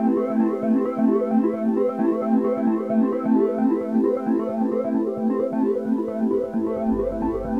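Background music of quick, evenly paced pitched notes, with a low bass coming in near the end.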